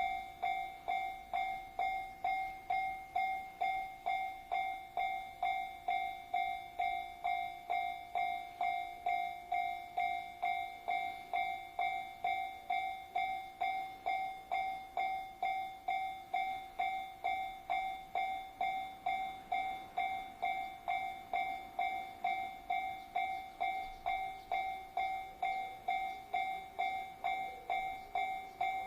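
Japanese railway level-crossing warning bell ringing in an even rhythm, a pitched ding about twice a second.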